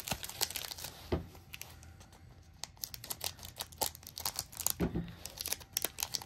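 Foil Pokémon card booster pack crinkling and crackling in the hands as it is picked up and torn open, with a couple of soft thumps from handling on the table.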